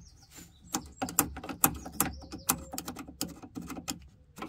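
Small pointed tool picking and scraping at the plastic clip of a fuel-line quick connector, flicking dirt out of it: a fast, irregular run of sharp little clicks and scrapes.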